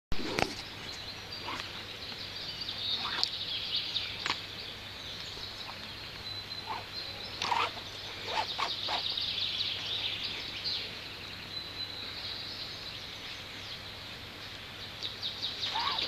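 Birds chirping steadily in the background, with a dozen or so short knocks and rustles scattered through it from rope being handled and threaded through the eyelets of a camouflage tarp.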